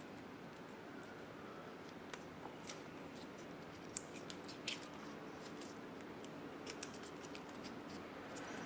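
Faint crinkling and scattered small crackles of Teflon tape being pulled and wrapped around an inline fuse holder, the sharpest about four to five seconds in, over a steady faint hum.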